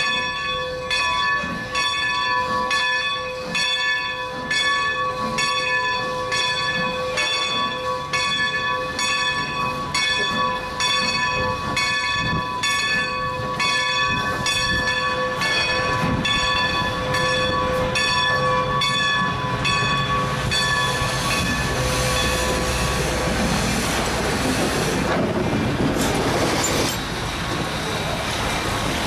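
Steam locomotive bell on Canadian National 89, a 2-6-0 Mogul, ringing in a steady rhythm of about one and a half strokes a second. The ringing fades out about twenty seconds in, while the rumble of the train running past grows louder.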